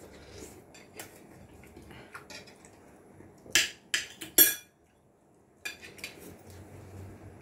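Spoons and forks clinking and scraping on plates as two people eat, in scattered small clicks. About halfway through comes a quick run of three or four louder clinks.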